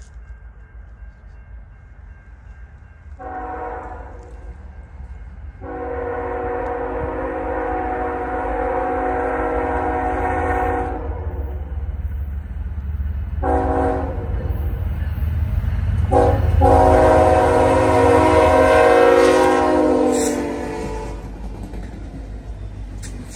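CN ES44DC diesel locomotive's multi-chime air horn sounding the grade-crossing signal: two long blasts, a short one, then a final long one. Underneath, the low rumble of the approaching freight train grows as the locomotives come close.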